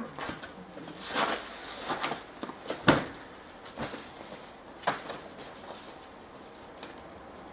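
Irregular crunches and knocks from a person moving over a gravel path with a large black plastic-wrapped bundle, the loudest knock about three seconds in. It grows quieter after about five and a half seconds.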